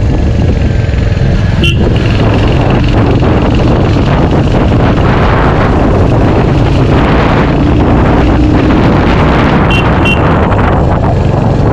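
Royal Enfield Hunter 350's single-cylinder engine running under way at road speed, mixed with loud, steady wind rush on the microphone. A few brief high clicks cut through, one about two seconds in and two close together near the end.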